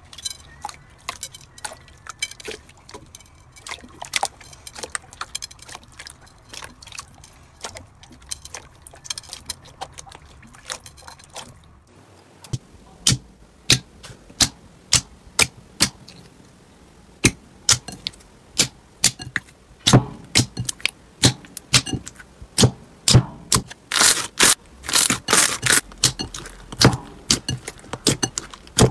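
Hands squeezing and pressing slime: a stream of sharp crackling and popping clicks. There is a brief break about twelve seconds in, and the crackles come thicker and louder near the end.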